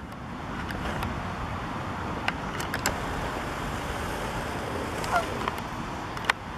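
Wind rumbling steadily on the microphone, with a single short Canada goose honk about five seconds in and a few sharp clicks.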